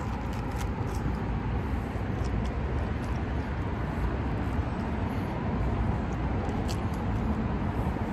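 Steady low rumble of road traffic, with a few faint short clicks through it.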